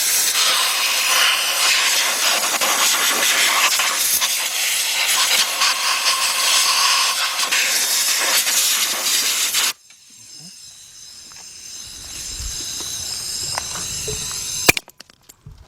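Compressed-air blow gun hissing in one continuous blast for about ten seconds, blowing leaked antifreeze out of the ignition-coil wells, then cutting off suddenly. A sharp click comes near the end.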